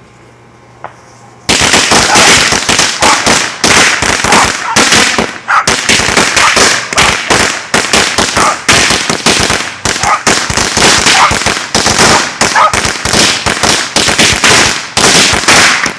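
A long string of firecrackers going off: a dense, rapid crackle of loud, sharp pops, many a second, starting suddenly about a second and a half in and carrying on without a break.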